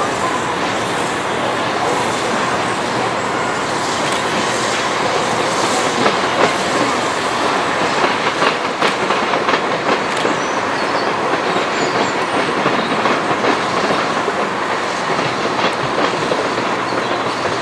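Railway wheels clacking over rail joints and pointwork as the LMS Jubilee steam locomotive and its coaches roll through the station, with a run of sharp clicks in the middle and a steady rolling noise underneath.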